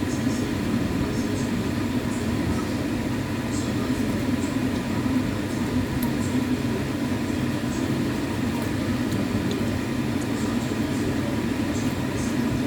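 A steady low rumble of background noise, with faint, scattered clicks and smacks of eating.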